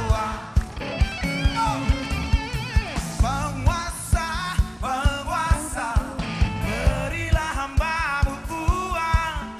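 A live rock band playing: electric guitars, and drums on a steady beat of about two hits a second, with singing over the top.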